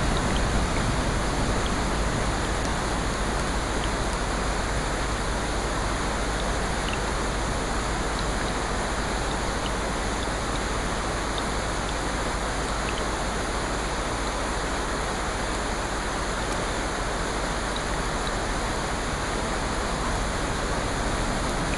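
Steady water noise: an even, unbroken rushing hiss with a few faint scattered ticks.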